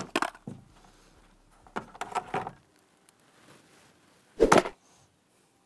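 Underbody trim panels on a C8 Corvette being worked loose and handled by hand once their bolts are out: a few scattered clicks and light knocks, then one louder, short clatter about four and a half seconds in.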